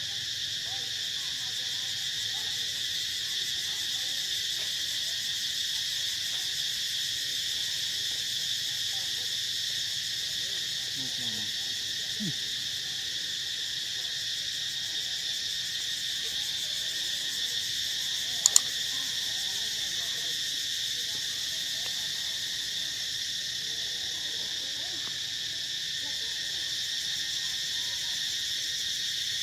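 A steady, high-pitched chorus of insects droning without a break. A single sharp click about two-thirds of the way through.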